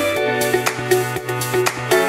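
Upbeat background music with a steady drum beat, sustained melodic notes and a bass line.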